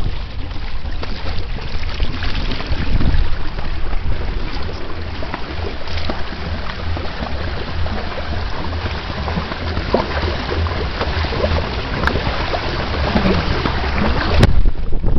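Water rushing and splashing past the hulls of a Weta trimaran under sail, with heavy wind buffeting on the microphone. A sharp knock comes near the end.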